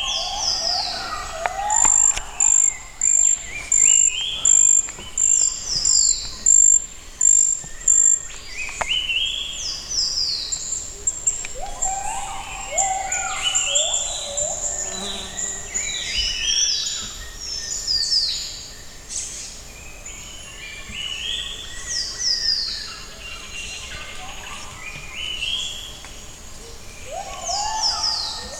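Gibbons singing their morning song, several animals calling over one another in a run of rising whooping notes. A high-pitched pulsing call repeats about ten times through the first several seconds.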